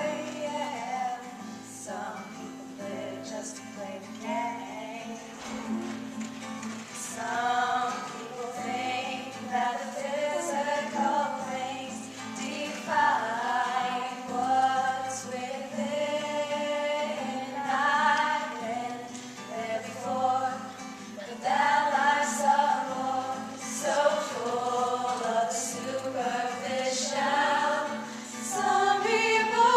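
High-school a cappella choir singing a pop mashup: a melody over held vocal harmonies and a sung bass line, with no instruments.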